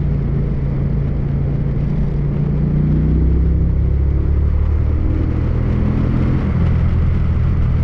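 Motorcycle engine running at road speed with wind rushing over the mounted camera's microphone. The engine note grows a little louder about three seconds in as the bike comes out of a bend onto a straight.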